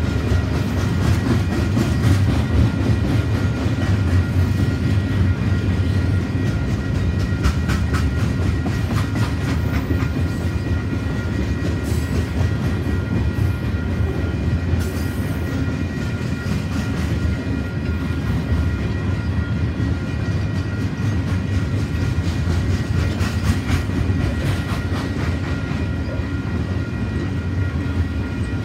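Freight cars rolling past close by: a steady rumble of steel wheels on rail with rapid, irregular clicking over the rail joints and a faint steady high whine from the wheels.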